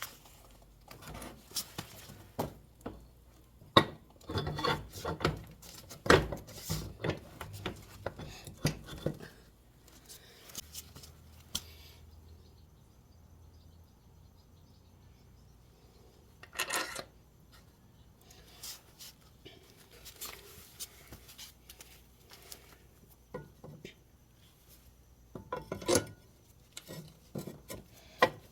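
Scattered metallic clinks, knocks and scrapes of a Honda Helix scooter's rear wheel and its metal hardware being handled and fitted back on. The clatter is busy for the first ten seconds or so, goes quiet for a few seconds, then comes in single knocks, the loudest about two seconds before the end.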